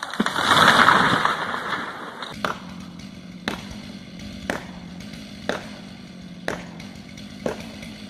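A tall conifer crashing down onto a house roof: a loud rushing crash of trunk and branches lasting about two seconds. Then sharp hammer blows, evenly spaced about once a second, over a steady low hum.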